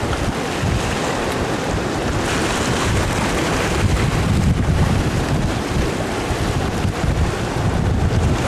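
Sea waves washing and foaming over a rocky shore, with wind buffeting the microphone as a heavy low rumble.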